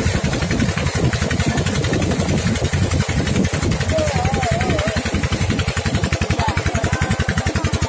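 Small wooden boat's engine running steadily under way, a rapid, even beat of low thuds that is most regular in the second half.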